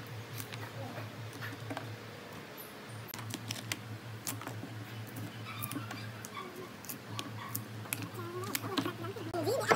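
Chisel prying and scraping dry bark off a log: irregular cracks and snaps as bark pieces split away, over a steady low hum. A short wavering cry near the end.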